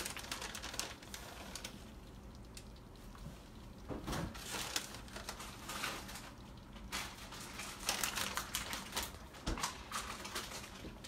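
Plastic bag of shredded cheese crinkling and rustling in several irregular bursts as cheese is shaken out of it into a pot.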